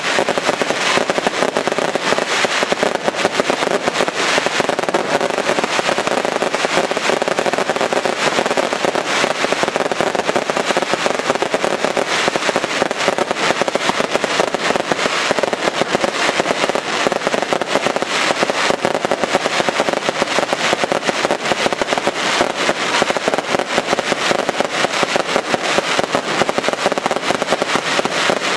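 Daylight aerial fireworks: a dense, unbroken barrage of many small firecracker bangs merging into one even, loud crackle.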